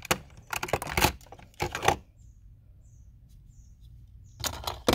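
Small metal diecast toy cars clicking and clattering against a hard plastic compartment case as they are picked through: a burst of rattles and clicks, a pause, then a few more clicks near the end.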